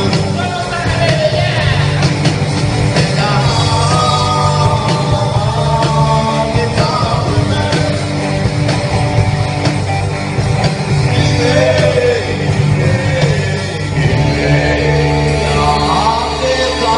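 Live rock band playing with electric guitars and a sung lead vocal, heard from the audience in a hall.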